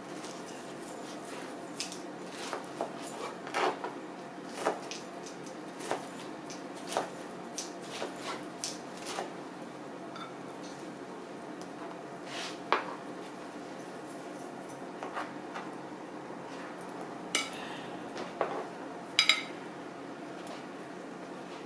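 Kitchen knife cutting pineapple into small pieces on a plastic cutting board: irregular knocks of the blade on the board, with clinks as pieces are set onto a plate, over a steady low hum.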